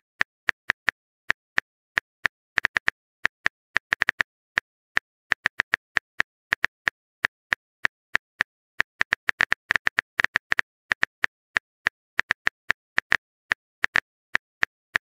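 Phone on-screen keyboard tap sounds: a short, sharp click for each letter typed, coming in quick irregular runs with brief pauses.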